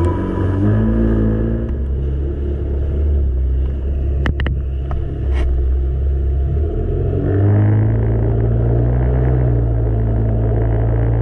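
Yamaha GP1800 jet ski engine running with a deep rumble, its pitch rising as the throttle opens about seven seconds in. A few sharp clicks come near the middle.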